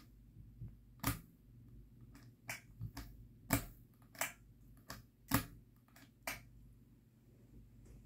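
Ceiling fan pull-chain switches clicking, about eight sharp, irregularly spaced clicks, over a low steady hum.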